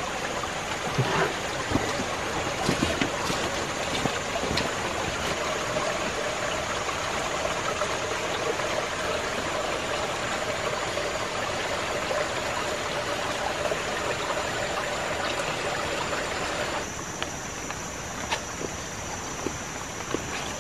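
Steady rushing hiss of water in wet forest just after rain, with a few light clicks and knocks; it drops a little quieter about seventeen seconds in.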